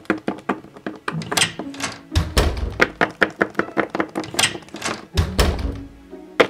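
A rapid series of sharp taps and clicks, several a second, with a deep thump about two seconds in and again near the end.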